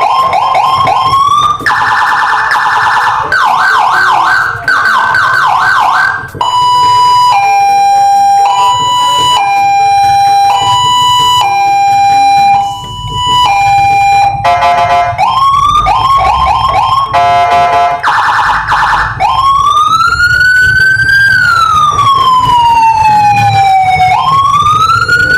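Electronic police-escort siren (Landun PJR module) through a 10-watt horn speaker, loud, stepping through its tones. First a fast warble, then a hi-lo two-tone switching between two pitches about once every 0.7 s, the fast warble again, and near the end a slow wail rising and falling.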